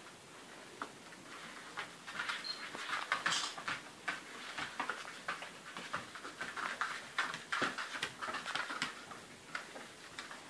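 Several puppies' claws clicking and pattering irregularly on a hard wood-effect floor as they walk and scamper about.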